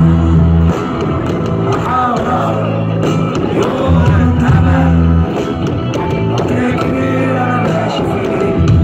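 Live rock band playing, with acoustic and electric guitars and keyboards, and a voice singing at times. Deep bass notes drop out about a second in and come back around four seconds.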